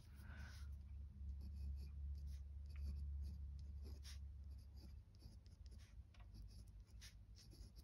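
Glass dip pen nib scratching faintly across textured watercolour card as it writes with watercolour paint, in short strokes. A low hum sits underneath and stops about five seconds in.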